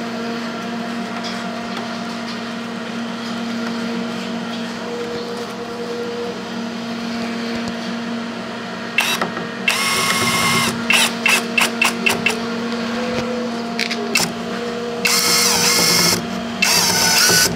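Cordless drill-driver driving screws into a plastic ceiling-vent diffuser ring. After a steady hum, it runs for nearly two seconds about halfway through, then in a string of short trigger pulses, and twice more near the end.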